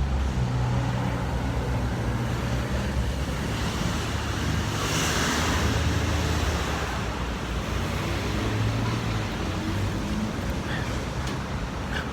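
Street traffic: a steady low hum of engines, with a vehicle passing about five seconds in.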